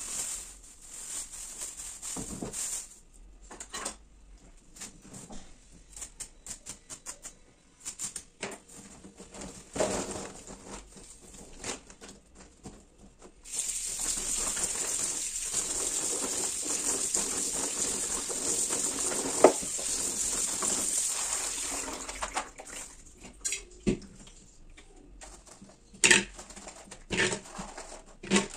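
Plastic bag rustling and pinhão seeds rattling as they are tipped into a plastic colander. About 13 seconds in, the kitchen tap runs onto the seeds for about eight seconds. Near the end the seeds knock and clatter as they are dropped into a steel pressure-cooker pot.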